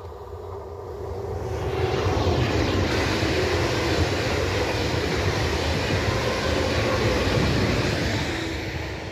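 ICE high-speed electric train passing close by at speed: a rushing noise of wheels on rail and air that swells over the first two seconds, holds loud, and eases off near the end.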